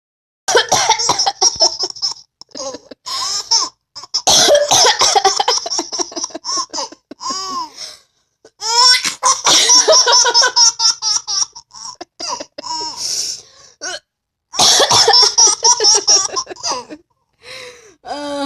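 Long fits of rapid, high-pitched laughter broken by coughing from a mother, in bursts with short pauses about halfway through and again near the end.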